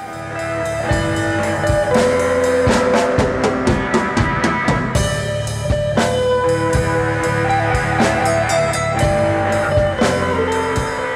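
Background music: a band track with a drum kit keeping a steady beat under guitar.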